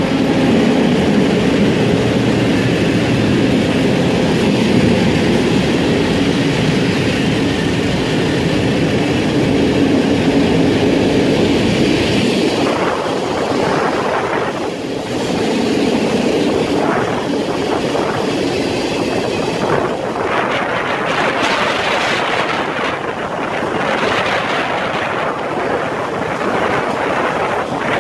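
Long freight train of cement hopper wagons rolling past, a loud, continuous rumble of steel wheels on rails.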